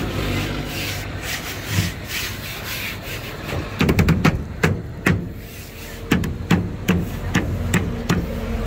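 Hands rubbing and pressing a glued rubber mat down onto a metal seat frame, then a run of sharp, irregular taps and knocks from about four seconds in as the mat is patted into place.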